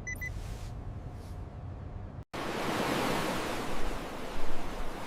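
A low rumble with two short electronic beeps at the start, then an abrupt cut about two seconds in to a loud, steady rush of ocean waves and wind that swells briefly near the end.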